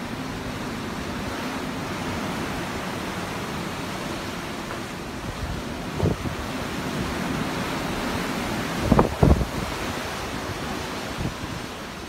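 Ocean waves in a steady rush of surf. Wind buffets the microphone in short low thumps, once about halfway and twice in quick succession a few seconds later.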